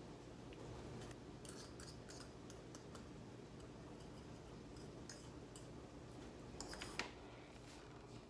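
Faint, scattered clicks and light scrapes of a utensil against a bowl while icing glaze is drizzled over cinnamon rolls, with a slightly louder cluster of clicks near the end.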